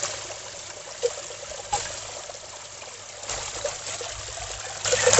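Water trickling and splattering over a small concrete ledge into a shallow pool, a steady run-off with a few small splashes, getting louder near the end.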